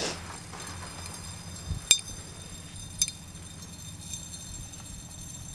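Two sharp clinks of glass on glass, about a second apart: small glass vials of sand tapping against a glass vase as sand is poured in. Low steady background noise underneath.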